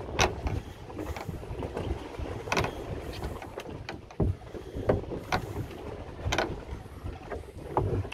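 Small boat at sea: a steady low rumble of wind and water, broken by about six sharp knocks and clicks.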